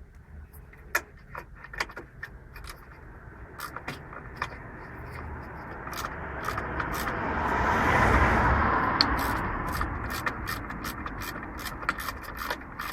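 A passing vehicle swells up, is loudest about two-thirds of the way through, then fades. Under it, irregular small metal clicks and taps of hand tools working on the suspension bolts.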